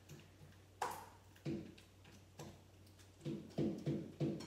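Borax-activated white glue slime being kneaded by hand in a bowl: a sharp click about a second in, then a string of short squelches, several close together near the end.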